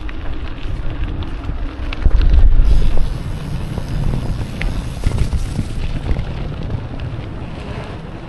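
Wind buffeting the microphone of an action camera on a moving mountain bike, over the rumble of knobby tyres on a gravel-and-dirt path and scattered clicks and rattles from the bike. A louder gust of wind noise comes about two seconds in and lasts about a second.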